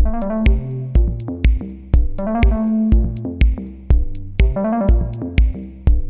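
Electronic background music: a steady drum-machine beat with a kick about twice a second under a synthesizer melody.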